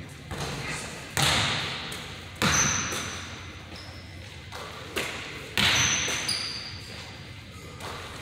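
Basketballs bouncing on a hardwood gym floor: about four sharp hits at uneven spacing, each trailing off in the long echo of the large hall, with short high squeaks of sneakers on the court between them.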